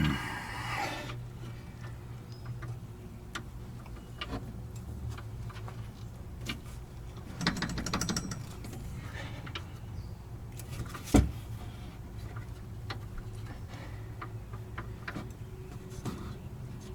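Scattered small clicks and knocks of hand tools and metal parts while a rear shock absorber's lower bolt is worked into line, with a short rattling burst about eight seconds in and one sharp knock about eleven seconds in. A steady low hum runs underneath.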